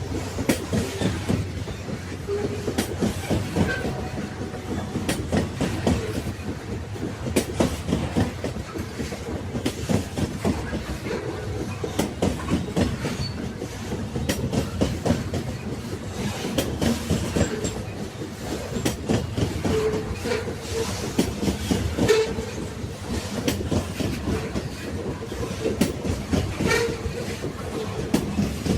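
Railway wagons rolling along the track: a steady low rumble with frequent wheel clacks and knocks over the rail joints.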